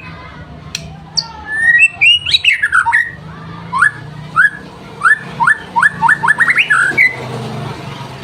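White-rumped shama (murai batu) singing loud, varied whistled phrases, ending in a run of quick upswept notes that speed up before the song stops.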